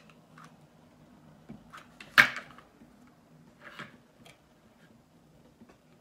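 Light clicks and taps of a hot glue gun and wooden popsicle sticks being handled on a table, with one sharp, much louder knock about two seconds in as the glue gun is set down on a plate.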